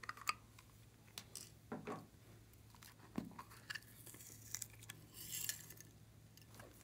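Quiet scattered clicks, taps and short rustles of small hard-plastic cases being handled and opened by hand, over a faint steady low hum.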